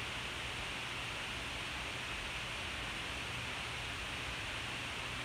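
Steady hiss of recording noise with a faint low hum underneath, with no distinct events.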